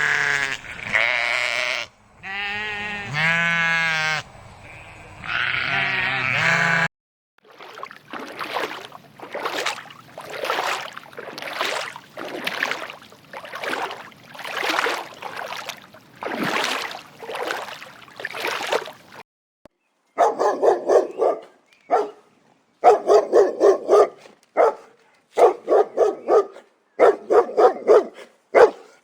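A run of different animal calls. Over the first seven seconds come long, wavering bleats. Then come about a dozen rough, noisy calls, roughly one a second. From about twenty seconds in, a dog barks in quick bursts of several barks each.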